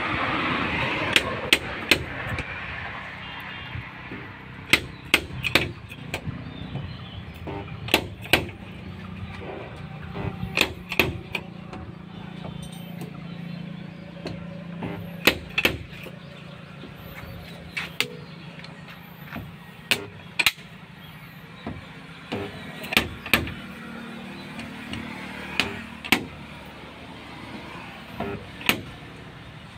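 Electronic spot-welder dent puller working a car door panel: sharp snaps and knocks at an irregular pace, often in quick pairs, as the tip is fused to the bare steel and the slide hammer jerks the dent out. A low steady hum runs underneath.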